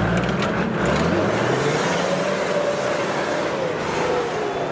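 Toyota Land Cruiser 70 series crawling off-road under load: a low engine hum that eases off after about a second over a steady rough noise, with a thin whining tone that rises slightly and then falls through the second half.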